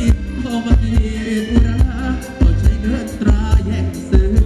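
Live Thai ramwong band music: a heavy, steady drum and bass beat with an electric guitar and melody over it.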